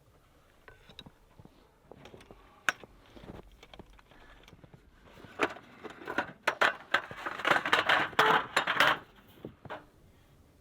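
Light clicks and clattering of small hard objects being handled, growing into a dense run of clatter about halfway through before stopping.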